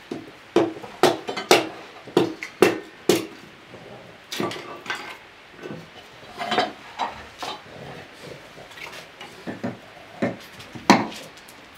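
Kitchen things being handled on a wooden table: sharp knocks and clatters of a knife and cookware set down on a wooden cutting board. There is a quick run of about eight knocks in the first three seconds, scattered ones after that, and the loudest knock comes about a second before the end.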